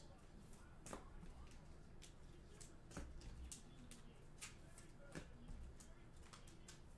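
Faint, irregular clicks and soft rustles of trading cards being handled and flipped through by hand.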